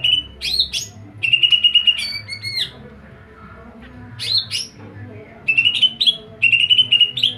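A songbird singing loud, repeated phrases of rapid chattering trills broken by quick rising and falling whistled sweeps, with a short pause about three seconds in.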